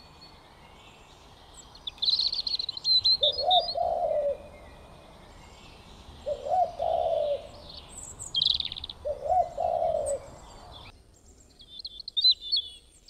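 Birds calling: three low, cooing calls about a second long each, spaced a few seconds apart, with higher chirps around them. A faint steady hiss behind them cuts off near the end.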